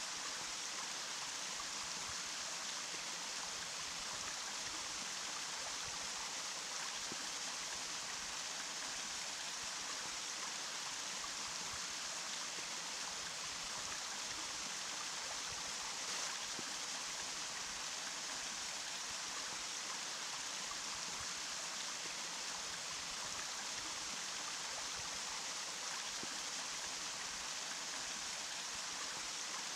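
Running water flowing steadily: an even, unbroken hiss, brightest in the high range with little low rumble.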